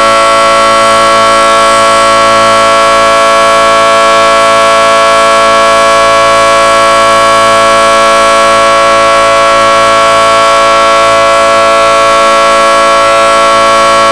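Outdoor emergency warning siren sounding a loud, steady tone made of several pitches at once, held without change.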